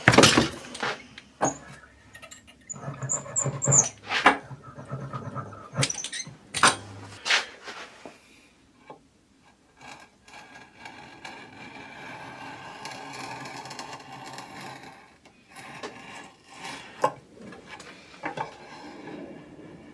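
Workshop handling sounds: a series of sharp knocks and clacks, as of wood panels and tools being set down and moved, with a brief high squeal about three seconds in and a faint steady hum through the middle.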